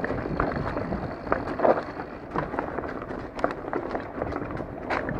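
Astrix Stryke full-suspension mountain bike rattling over a rutted, loose dirt trail: a steady rumble of tyres on dirt with frequent sharp knocks and clicks from the frame, chain and suspension on the bumps, one harder jolt just under two seconds in and another near the end.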